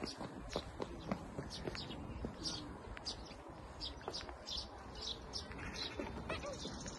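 A small bird chirping over and over, short high chirps coming about two or three a second, faint against a low background rumble.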